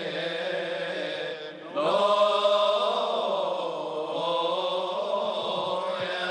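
Choir of male deacons chanting a Coptic liturgical hymn in unison, drawing out long melismatic notes that wind slowly up and down, with a short pause about a second and a half in.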